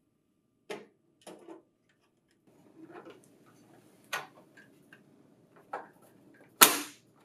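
Hard plastic parts clicking and knocking together as an inner rear cover is fitted onto a printer's offset stacker, a handful of light clicks with a soft rustle, then one loud sharp snap near the end as the cover clips into place.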